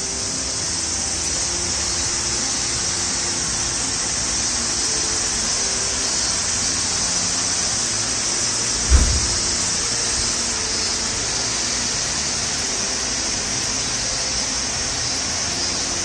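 Steady rushing of water, an even hiss with no rhythm, with a single low thump about nine seconds in.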